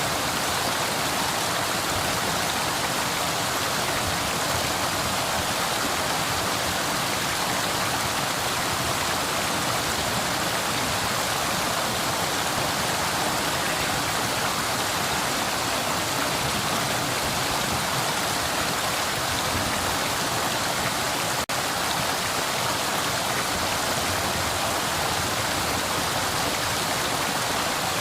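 A flowing river running steadily: an even rush of water with no pauses, and a momentary dip in level about three-quarters of the way through.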